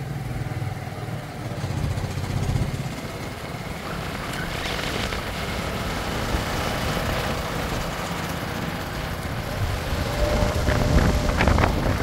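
JCB 3DX backhoe loader's diesel engine running steadily as the machine drives along.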